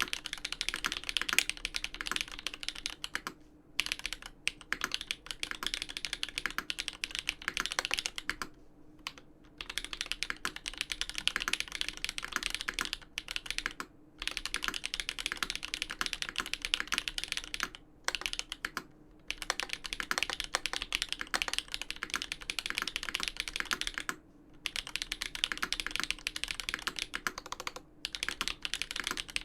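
Fast continuous typing on a custom mechanical keyboard with Everglide Dark Jade Black linear switches on split 63.5 g slow springs, an aluminium plate and GMK keycaps, in a Dolphin v2 case. Dense runs of keystrokes, broken by short pauses every few seconds.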